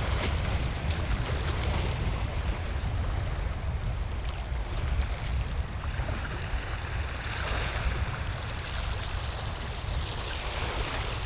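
Small waves washing and swirling over a rocky shore shelf, a steady wash of surf, with wind buffeting the microphone as a low rumble.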